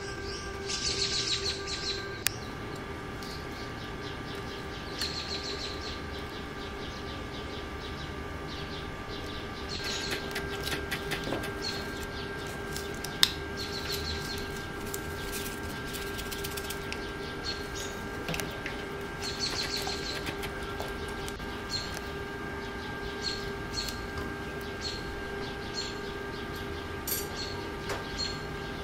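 Silicone whisk stirring a thickening milk pudding in a metal saucepan: intermittent bursts of scraping strokes with short high chirping squeaks, over a steady hum.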